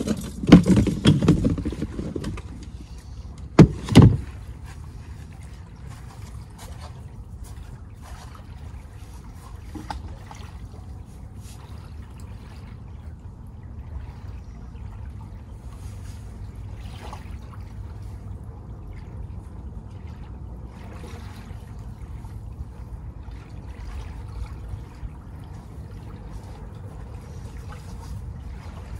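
Seaside ambience: wind rumbling on the microphone over small waves lapping and trickling at the shore. There is loud handling noise in the first couple of seconds and two sharp knocks about four seconds in.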